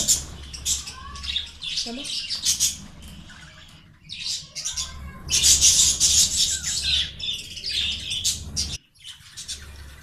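Budgerigar chattering: a fast run of scratchy, high-pitched chirps and squawks, loudest about halfway through, with a brief pause near the end.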